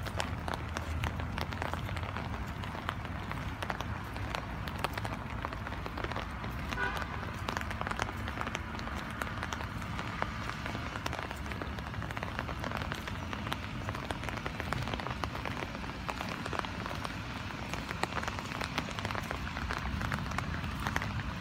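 Steady rain falling, a dense patter of many small drop ticks that keeps an even level throughout, over a low rumble.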